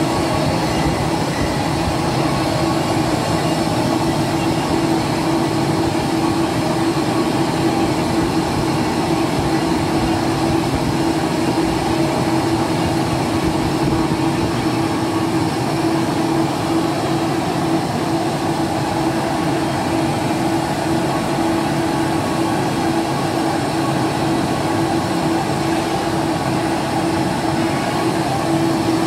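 Vertical lathe running, its table turning a submersible pump casing while the tool machines the rim: a steady machine noise with a constant hum.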